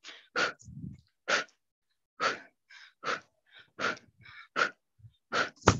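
A woman breathing hard and audibly into a headset microphone while exercising: short, forceful breaths about once a second as she twists her torso from side to side. A short sharp knock comes near the end.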